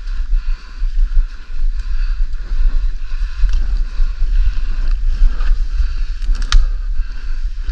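Footsteps pushing through leaf litter and ferns, with heavy low rumble from wind and handling on a body-worn camera. A single sharp click about six and a half seconds in.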